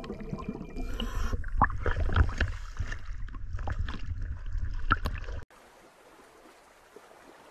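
Sea water bubbling and sloshing around a camera as it comes up from underwater to the surface, with a low rumble and scattered sharp splashes. The sound cuts off suddenly about five and a half seconds in, leaving only a faint hiss.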